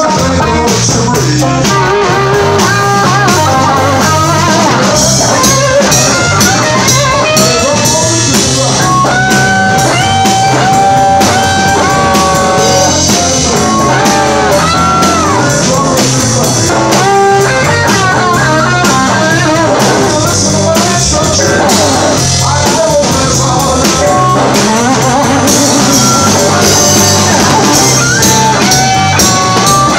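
Live blues band playing, with electric guitar and drum kit. The lead line holds and bends long notes.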